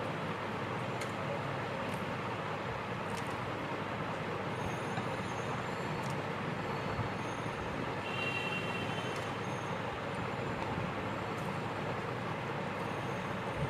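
Steady background noise with a few faint clicks.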